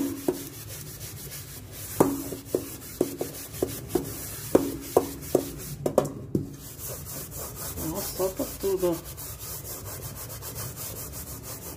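Kitchen sponge scrubbing the inside of an aluminium pot with a homemade cleaning paste, polishing it to a shine. Under the steady rubbing, the pot is knocked lightly about twice a second for a few seconds and rings briefly each time.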